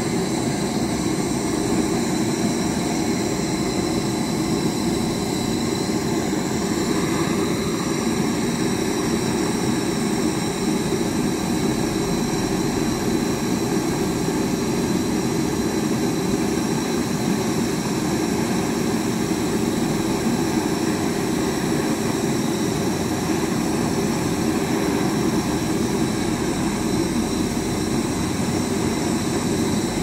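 A machine running steadily: an even, unbroken drone with faint high whines above it, unchanging throughout.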